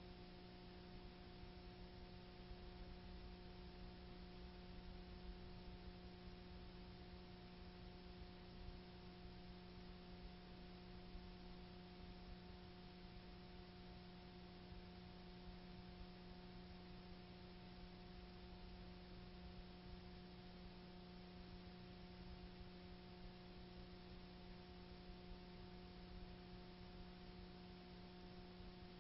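Near silence: a faint steady hiss with a low, unchanging hum, the bare noise floor of a soundtrack that holds no sound.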